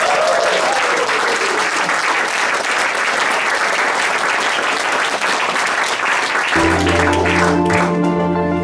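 Theatre audience applauding steadily. About six and a half seconds in, instrumental music with sustained notes starts under the clapping as it dies away.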